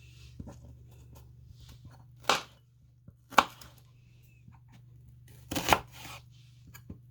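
Half an onion being chopped into chunks with a kitchen knife on a cutting board: a few sharp, irregularly spaced chops, the last two close together, with softer taps in between.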